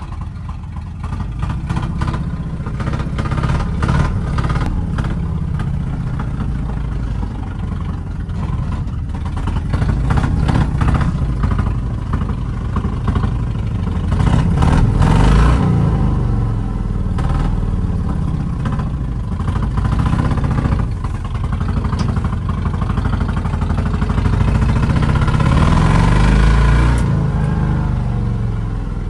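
Truck engine running, heard from inside the cab of a 1970 Ford F250 on a dirt road, with the cab clattering; it swells louder twice, as if accelerating.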